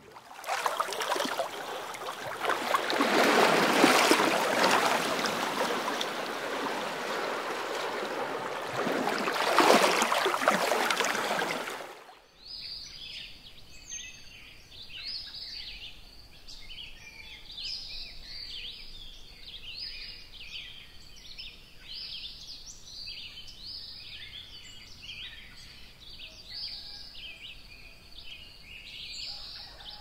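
A loud, even rushing noise swells twice and cuts off about twelve seconds in. It gives way to many birds calling, quick high chirps and trills repeating over a quiet background.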